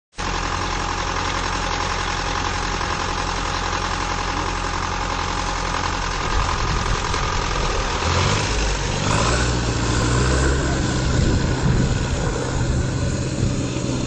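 A 4x4's engine running steadily. About eight seconds in, as the vehicle drives into the river, the engine note deepens and turns uneven.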